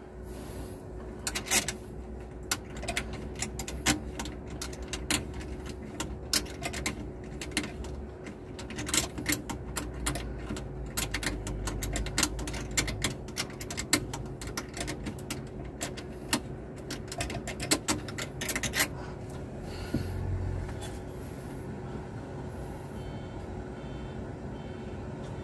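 Irregular metallic clicks and taps from hands and tools working at an oxygen cylinder's valve fittings, several a second, stopping about three-quarters of the way through. Under them runs a steady mechanical hum with a constant tone.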